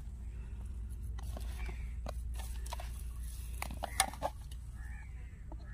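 Sharp clicks and taps of a plastic food container and its snap-on lid being handled and worked open, the loudest about four seconds in, over a steady low rumble.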